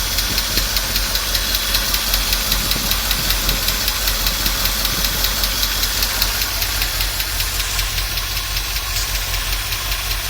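Chevy small-block 350 V8 idling with a steady, snappy tick a few times a second from the rear of the engine. The owner suspects a bad lifter or a leaking exhaust manifold gasket.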